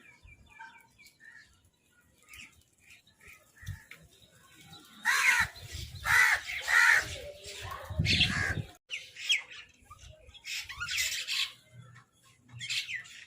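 Crows cawing harshly, several loud calls in quick succession in the middle, with fainter chirps early and more calls near the end.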